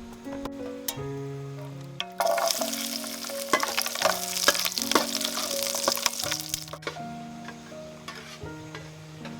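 Food sizzling in a hot pan, with the clicks of stirring, starting about two seconds in and stopping a couple of seconds before the end. Background music plays throughout.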